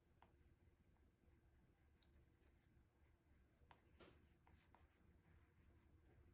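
Faint scratching of a pencil sketching on paper, in short, irregular strokes.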